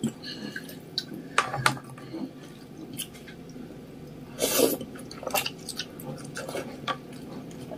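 Eating noodle soup: wet chewing and small clicks of chopsticks and spoon against the bowl, with a louder slurp of noodles about four and a half seconds in.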